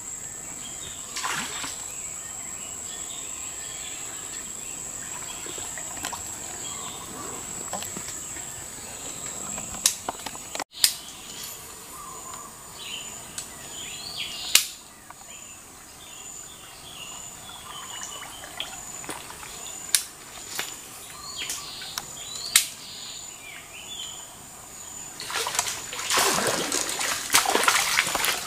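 Forest swamp ambience: a steady high insect drone with scattered bird calls and a few sharp clicks, then water splashing for a few seconds near the end.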